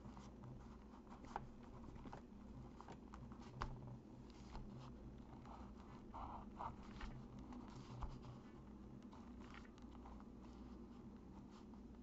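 Pen scratching faintly on graph paper as small squares are drawn, with a few light ticks as the pen strokes and lifts, over a steady low hum.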